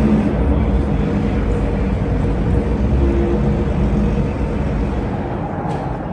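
A car engine running loud, its sound slowly dying away toward the end.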